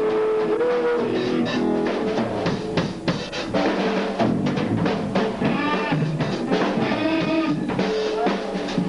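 Live rock band playing: electric guitars with a drum kit. A held note at the start gives way to busy drumming with many quick hits.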